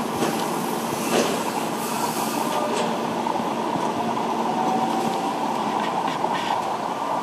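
Steady din of heavy diesel construction machinery at a foundation-drilling site, with a faint hum and a couple of sharp metal knocks.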